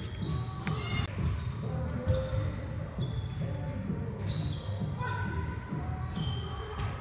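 Background music with a steady low beat and short held high notes.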